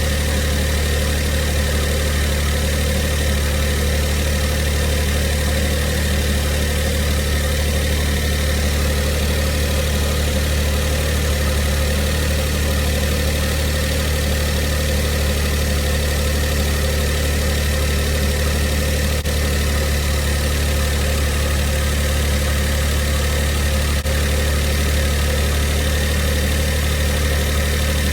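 Mitsubishi i kei car's 660 cc three-cylinder engine idling steadily, with the abnormal noise it has developed. The owner traces the rattle to an air-conditioning compressor that is starting to fail under the load of a new auto-tensioner, and places the whirring somewhere inside the engine.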